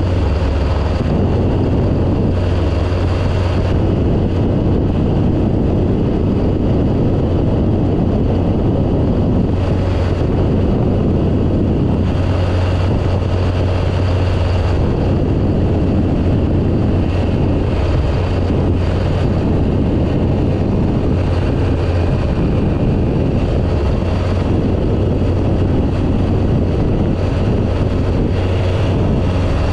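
Phantom ultralight aircraft's engine running steadily in cruise, a constant low drone, with wind rushing over the tail-mounted camera's microphone.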